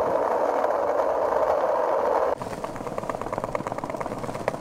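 Skateboard wheels rolling over asphalt with a steady rolling noise. A little over two seconds in it changes suddenly to quick rattling clicks as the wheels run over the joints of stone paving tiles.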